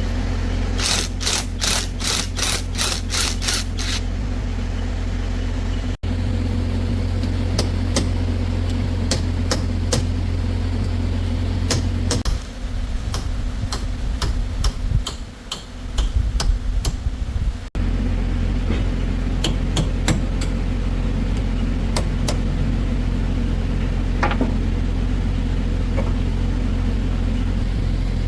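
Excavator's diesel engine idling with a steady low hum, with a quick run of about eight sharp metal taps from about a second in and scattered tool clicks over it.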